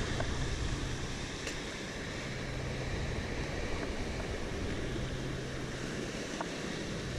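Wind buffeting the microphone over small surf breaking and washing up the beach, a steady rushing noise throughout.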